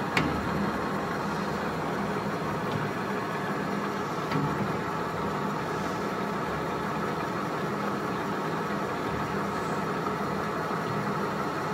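1980 LeBlond Regal Servo Shift engine lathe running under power with a steady mechanical whir from its headstock and feed gearing. A sharp click comes right at the start and another about four seconds in.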